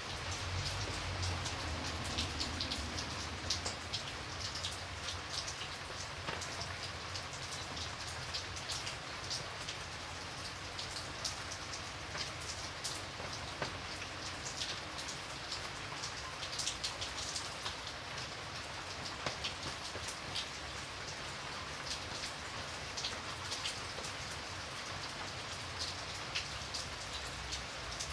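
Light rain falling steadily: a continuous soft hiss with many scattered individual drop ticks.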